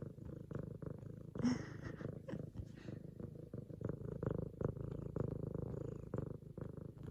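F2 Savannah cat purring loud and steady, close up.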